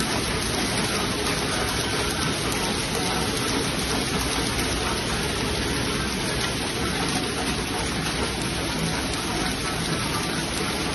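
Glove knitting machine running, a steady dense mechanical noise with no pauses.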